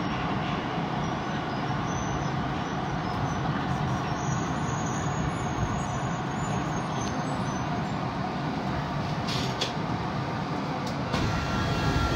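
Tokyo Metro Ginza Line 1000 series subway train running steadily through a tunnel, heard from inside the front car: an even rumble and hiss of wheels on rail.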